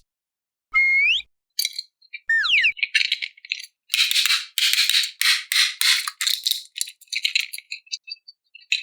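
A short rising whistle-like sound effect and then a falling one, followed by a long run of quick, high-pitched rattling bursts.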